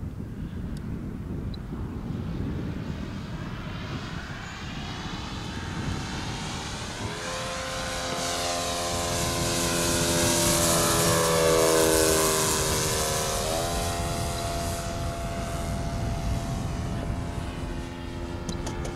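Electric motor and propeller of a radio-controlled Pitts Special biplane, driven by a Turnigy Rotomax 50cc brushless motor, whining as it makes a low pass. The whine grows louder from about seven seconds in, is loudest around eleven to twelve seconds, drops in pitch as the plane goes by, then rises in pitch again. Wind rumbles on the microphone throughout.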